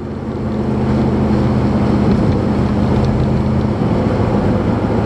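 The 1968 Corvette's 327 V8 running under way, heard from inside the cabin along with road and wind noise. It swells over the first second as the car pulls away, then holds a steady drone, and the engine's pitch changes nearly four seconds in.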